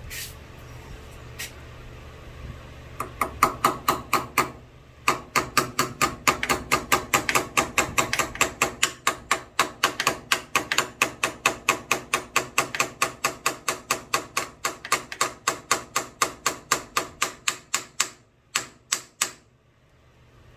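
Rapid, evenly spaced sharp clicks or taps, about four a second, with a short break about four seconds in and a few slower clicks just before they stop near the end.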